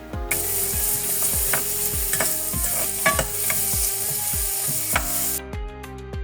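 Garlic, onion and dried chilli sizzling as they fry in hot oil in a pan, with a spoon clicking against the pan as they are stirred. The sizzle stops suddenly about five seconds in.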